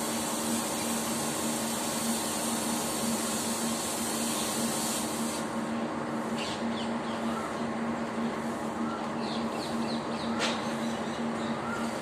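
Steady background hum and hiss. The high hiss drops away a little over five seconds in, and after that there are a few faint short chirps and clicks.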